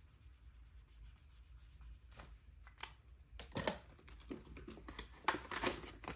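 Paper dollar bills being handled and shuffled: crisp rustling and crinkling in short, irregular crackles, starting about two seconds in after a quiet start.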